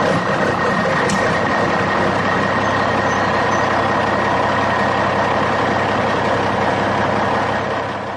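Steady engine-like running noise with a constant whine, cutting off suddenly at the end.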